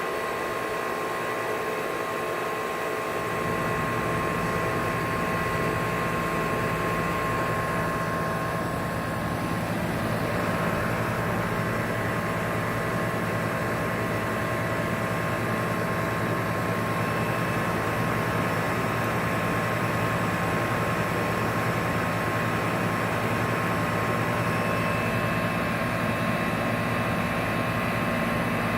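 Outdoor HVAC compressor unit running with a steady mechanical hum and a thin high whine; a deeper low hum fills in about three seconds in.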